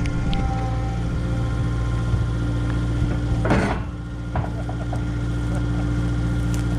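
Diesel engine of a Cat construction machine running steadily. About three and a half seconds in, a short rush of noise cuts across it.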